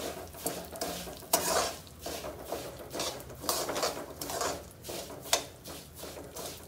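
Long slotted steel spatula stirring and scraping broken wheat around a steel kadai as it roasts in ghee over a low flame, with repeated irregular scrapes and clinks of metal on metal.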